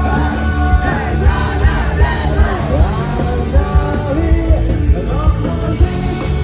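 Live band playing rock music with a singer, over a steady heavy beat.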